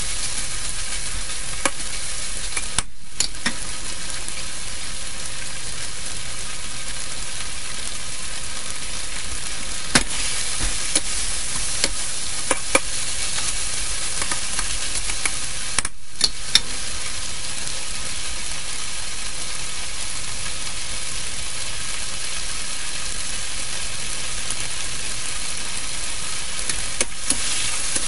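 Shrimps, peas and diced vegetables sizzling steadily in a hot steel wok, with scattered clicks and scrapes of a metal wok spatula stirring against the pan. The sizzle drops out for a moment twice.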